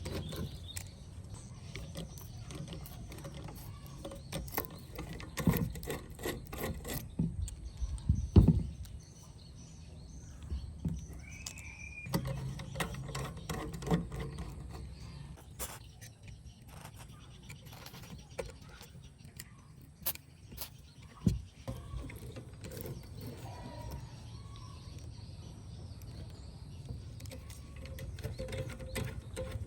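Irregular clicks, taps and knocks of hands and tools at work, with two louder knocks about eight and twenty-one seconds in, over a low steady rumble.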